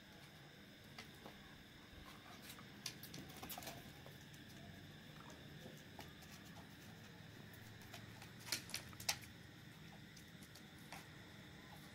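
Faint clicking and pattering of dogs' claws and paws on a tiled floor as a sighthound and a puppy move about in play. There are scattered light ticks, with a few sharper clicks about eight and a half to nine seconds in.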